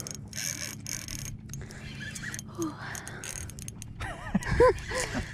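Spinning reel working against a large hooked fish: its gears and drag click and whir as line is reeled in and pulled off. A few short squeaky chirps rise and fall about four seconds in.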